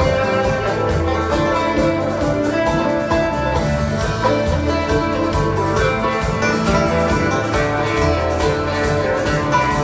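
Live bluegrass-style string band playing: fiddle, banjo, acoustic guitar, electric bass and drum kit together in a continuous, even passage.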